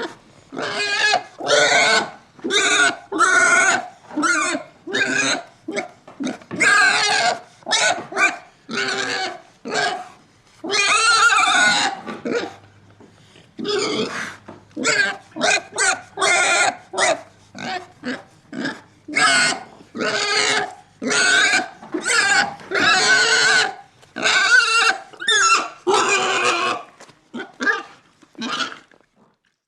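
Pig grunting and squealing: a quick run of short calls with a few longer, drawn-out squeals.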